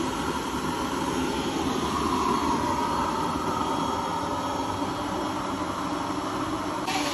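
Used-engine-oil cooking stove burning: a steady rushing noise from the burner flame.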